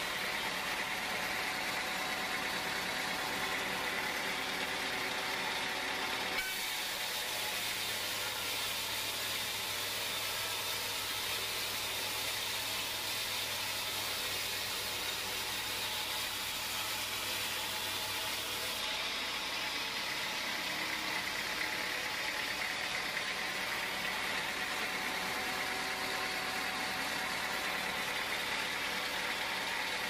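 Band sawmill running steadily as its blade saws through a teak log, a constant mechanical hum with a hiss. Its tone changes abruptly twice.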